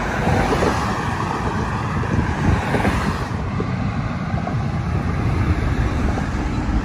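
Wind buffeting the microphone: a loud, steady, uneven low rumble, easing slightly in the upper range about three seconds in.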